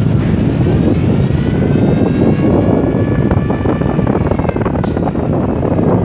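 Heavy wind buffeting the microphone. Through it, a droning engine tone rises gently and then falls away during the first four seconds or so.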